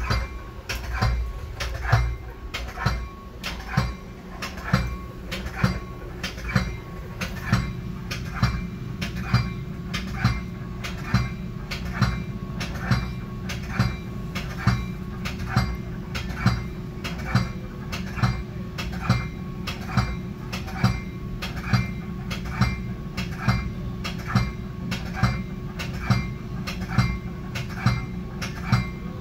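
Commuter train's warning bell ringing steadily, a little more than one strike a second, over the low rumble and steady hum of the idle train.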